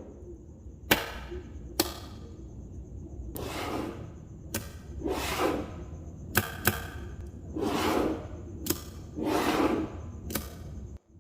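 Small magnetic balls snapping together with sharp clicks, about seven of them, between short rubbing swishes as the balls are slid and pressed into place.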